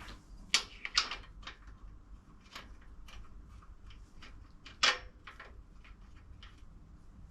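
Scattered small metallic clicks and taps as an M6 grub screw is fitted and worked into a part by hand, with three sharper clicks standing out, the loudest about half a second in.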